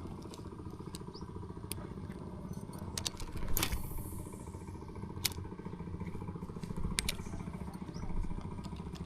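A small engine running steadily with a fast low pulse, with several sharp clicks over it; the loudest click, about three and a half seconds in, is followed by a short hiss.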